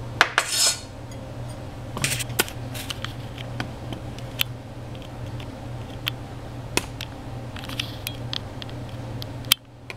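Kitchen utensils clinking and scraping against dishes: a short scrape just after the start, then scattered single knocks and clicks, over a steady low hum.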